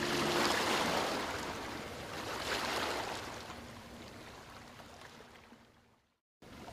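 Sea water washing and rushing. It surges a couple of times, then fades away and cuts out briefly near the end before picking up again.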